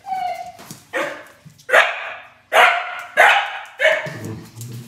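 A Doberman barking: about six sharp barks in a row, spaced half a second to a second apart.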